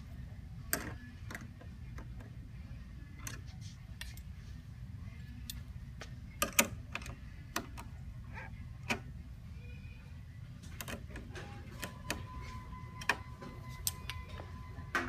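Irregular small metallic clicks and taps of a hex driver and fingers working the bolts and nuts on motorcycle windshield brackets, over a low steady hum.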